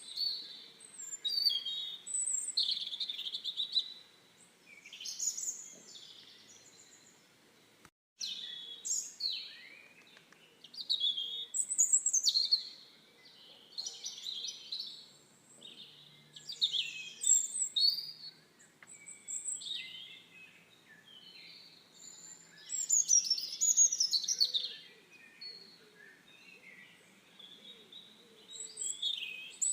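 Songbirds chirping and singing in quick, high, overlapping phrases, with a brief break about eight seconds in.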